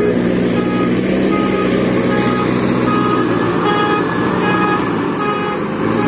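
JCB 3DX backhoe loader's diesel engine running steadily while the machine works, with short high beeps repeating through it.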